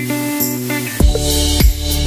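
Instrumental background music with sustained pitched notes. About a second in, a deep, steady kick-drum beat comes in under the melody, roughly one hit every 0.6 seconds.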